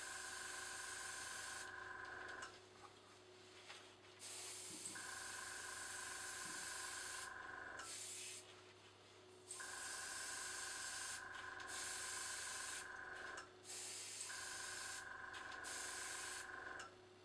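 Dual-action airbrush spraying acrylic paint in spurts of hissing air with short pauses, while a small tankless compressor runs with a steady hum and whine. The compressor cuts out a few times, each time shortly after the spraying stops, and starts again soon after the spraying resumes.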